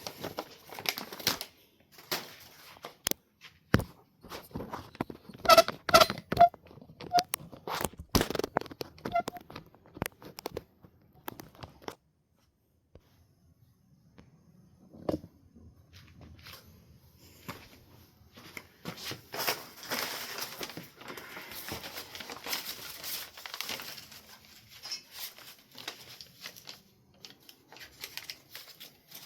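Packing wrap crinkling and rustling, with scattered knocks and clicks, as ceiling fan blades are handled and wrapped; it pauses briefly about halfway through.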